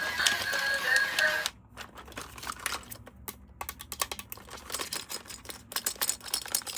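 A short tune cuts off about a second and a half in, followed by irregular light clicks and taps from plastic toys being handled.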